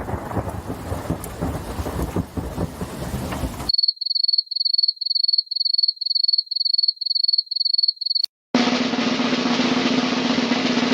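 A string of separate sound effects. First a rainstorm with crackling thunder, which cuts off abruptly into a high electronic beep repeating about twice a second for some four seconds. Then, after a brief silence, a steady dense rattle with a low hum under it.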